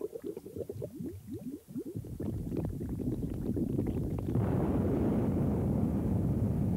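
Low bubbling and gurgling for the first two seconds, then a dense low rumble that grows and swells louder about four seconds in, holding steady: a stage sound effect for a billowing cloud of smoke.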